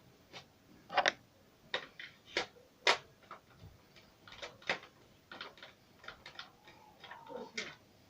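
Irregular light clicks and taps of small hard parts being handled, about fifteen at uneven spacing with a few louder ones, as when working on a car cassette player's tape transport mechanism.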